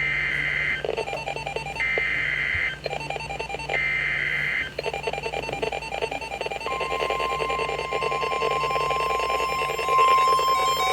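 Emergency Alert System SAME header: three short bursts of screeching digital data, followed about 6.7 s in by the steady 1050 Hz NOAA Weather Radio warning alarm tone, which gets louder near the end. A lower, buzzy stuttering sound fills the gaps between the bursts and continues under the tone. Together they signal the start of a severe thunderstorm warning.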